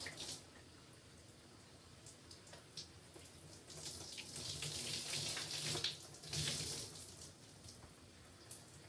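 Faint shower water splashing as wet hair is rinsed and washed. It comes in two stretches after a quiet start.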